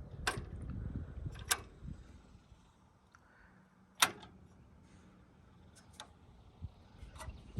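Sharp, isolated clicks and taps, about six of them a second or so apart, the loudest about four seconds in, from hands working the throttle linkage on the stopped carburetor of a Case 646 loader's engine.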